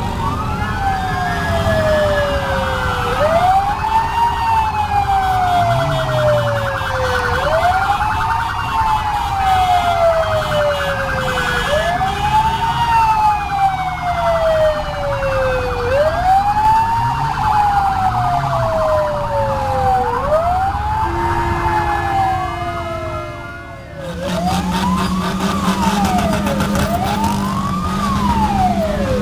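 Several electronic vehicle sirens wail together. The main one rises quickly and falls slowly in a cycle of about four seconds, with a faster warble over it. About 24 seconds in, a different siren takes over, rising and falling evenly about every two seconds over a steady low engine hum.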